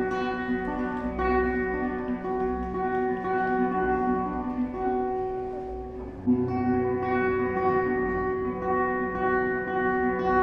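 Instrumental music with steady, held notes and chords; a phrase fades and a new one begins about six seconds in.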